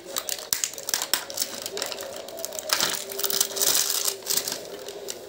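Hard plastic toy pieces clicking together as they are handled, then a clear plastic packaging bag crinkling and rustling in the hands from about halfway in.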